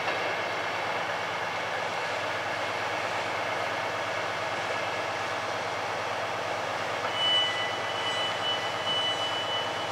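Class 390 Pendolino electric train running in over pointwork, a steady rushing noise of the train on the rails. About seven seconds in, a thin, high, steady squeal joins it.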